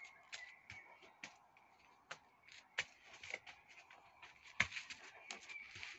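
Faint scattered clicks and light rustling, with one sharper click a little past the middle.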